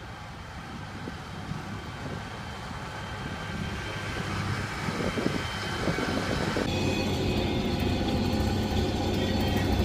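Snowcat engine running with a low rumble that grows steadily louder. The sound shifts abruptly about seven seconds in.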